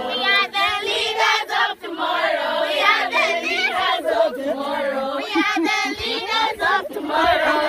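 A group of schoolgirls singing and chanting together, many voices at once.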